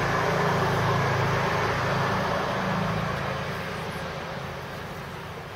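A motor vehicle's engine passing, a steady low hum that fades away over the last two seconds or so.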